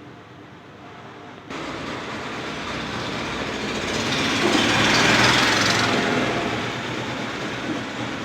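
Small electric compressor, of the kind that drives a nebuliser, running with a steady hum and hiss. The sound jumps louder about a second and a half in, and the hiss swells in the middle before easing off.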